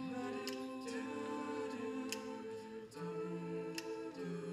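An a cappella vocal group singing held chords in several voice parts over a low bass line, with no instruments. Short crisp hits come about every second and a half.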